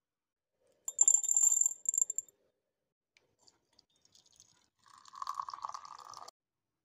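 A bright clinking rattle against glass for about a second, then a thin stream of water poured into a glass jar, splashing for about a second and a half and stopping suddenly.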